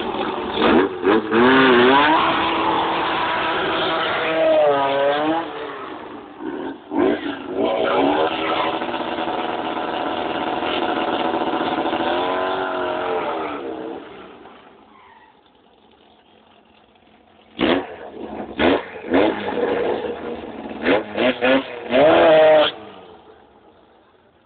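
Volkswagen Beetle drag car's engine revving hard through a smoky burnout, its pitch rising and falling again and again for about fourteen seconds. After a lull of a few seconds comes a run of short, sharp engine revs.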